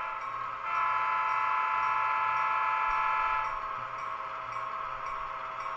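Sound-decoder horn of an HO scale BNSF GP15 model diesel locomotive, blown in one steady blast of about three seconds as it passes a grade crossing, over a low steady hum.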